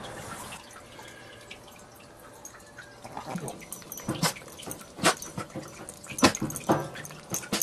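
A Maltese puppy rooting among plush toys beside a kibble bowl, making a handful of sharp clicks and taps, about five, from about three seconds in.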